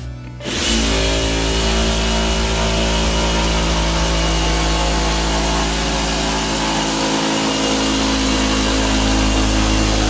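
Ryobi jigsaw cutting through particleboard along a marked line. It starts about half a second in and then runs loud and steady.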